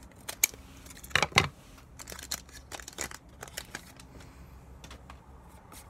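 A foil Pokémon booster-pack wrapper crinkling and tearing open by hand, in a quick run of crackles and ticks, the loudest about a second in, thinning out toward the end.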